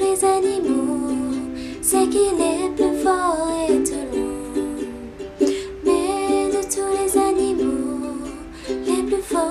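A woman singing in French while strumming a ukulele, the strums coming as quick repeated strokes under the melody.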